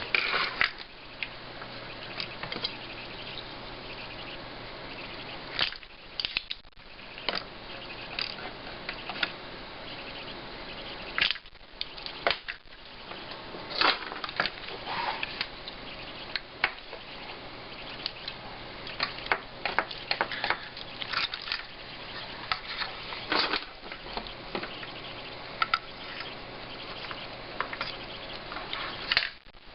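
Desoldering work on a monitor's power-supply board: scattered sharp clicks and snaps from a spring-loaded solder sucker and tools on the board, over a steady low hum.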